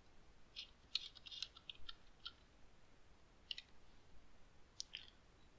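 Faint computer keyboard typing: a quick run of key clicks from about half a second to two and a half seconds in, then a few single clicks later.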